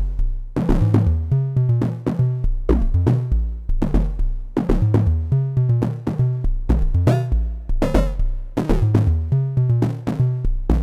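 Two Slim MPS analogue percussion synth modules, eurorack versions of Thomas Henry's Mega Percussive Synth, playing a steady rhythmic pattern of pitched drum hits. Many hits drop quickly in pitch, over a repeating low bass-drum pulse.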